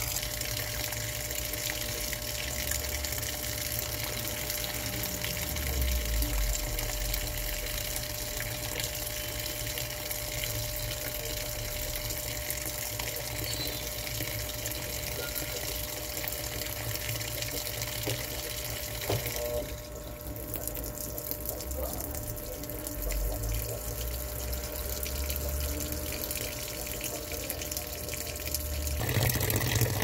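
Top-loading washing machine filling: a steady stream of water pours from the fill inlet into the tub, splashing onto soapy laundry, and grows louder near the end.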